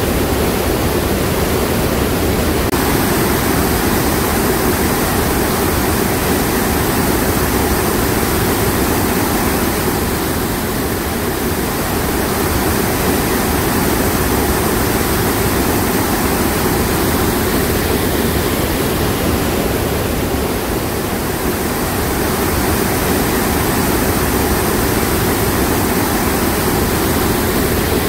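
Steady, loud rush of river water pouring through the chutes, a waterfall and rapids.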